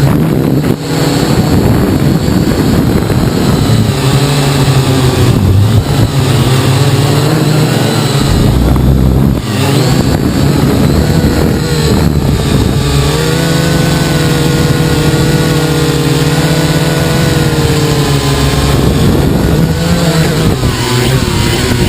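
Syma X8HG quadcopter's motors and propellers running loudly, a steady buzzing whine that shifts up and down in pitch as the throttle changes.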